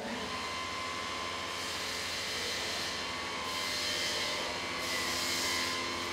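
A workshop machine starts abruptly and then runs steadily: a loud hiss with several steady whining tones, the hiss swelling and easing every second or two.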